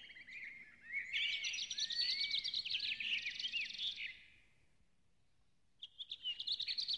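Several small birds chirping and singing: quick twittering calls and short rising and falling whistles. The sound cuts out abruptly at about four seconds and comes back shortly before the end.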